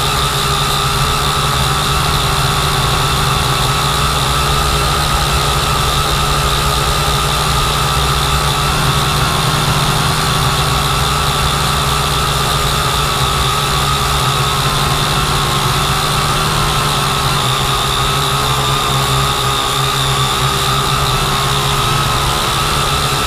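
Multirotor drone's electric motors and propellers whining steadily, heard loud and close from on board as it climbs, the pitch wavering slightly partway through.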